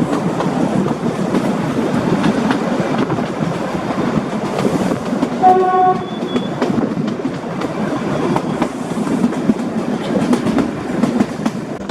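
Passenger carriage of the narrow-gauge Kalka–Shimla mountain train rattling along the track, with steady rumbling and repeated wheel clicks. A short horn blast sounds about five and a half seconds in.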